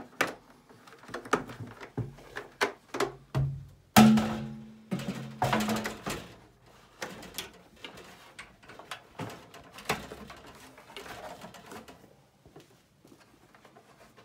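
Irregular knocks, clicks and scrapes of a plastic pre-separator bucket and its screw-on lid being handled on an aluminium hand truck. One loud clunk about four seconds in rings briefly.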